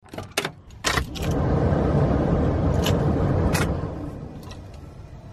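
Pickup truck door handle clicks twice and the door latch knocks, followed by a steady low rumble in the cab that fades away after about three seconds, with a couple of light clicks in it.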